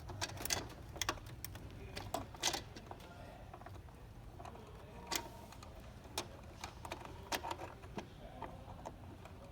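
Screwdriver clicking and tapping against the plastic housing of a small countertop ice maker as a screw is backed out, in irregular light clicks over a steady low hum.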